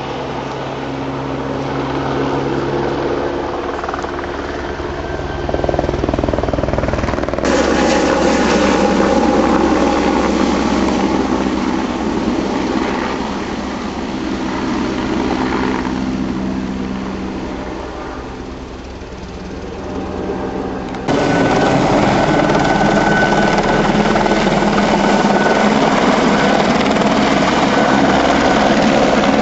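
Firefighting helicopter's rotor and engine running, growing louder and fainter as it flies, with sudden jumps in level about 7 and 21 seconds in.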